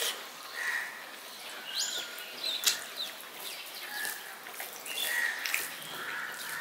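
Small birds chirping in the background, short whistled calls every second or so, over faint clicks and smacks of rice being mixed by hand on a steel plate and chewed.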